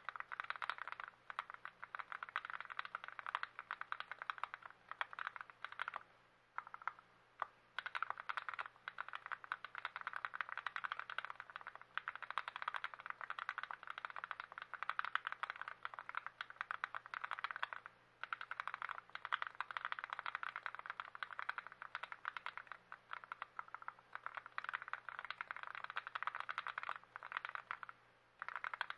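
Fast, continuous typing on the TX66 custom mechanical keyboard after its switches and stabilizers have been lubed: a dense stream of key clacks, broken by a few short pauses.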